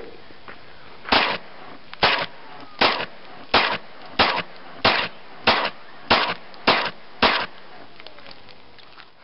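Two 9mm handguns firing: about ten sharp shots at an even pace, roughly one every two-thirds of a second, each trailing off briefly.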